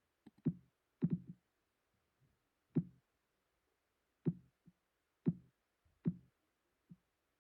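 Synthesized ear-clicking or thumping sound of the kind heard with middle ear myoclonus: about ten short, dull thumps, each with a faint click on top. They come at uneven intervals rather than as a steady beat.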